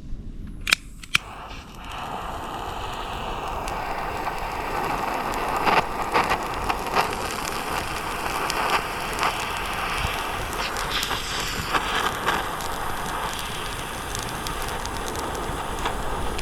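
A homemade Swedish torch burning: a steady rushing hiss of flame with scattered crackles and pops. Two sharp clicks come about a second in, and the hiss builds over the next few seconds.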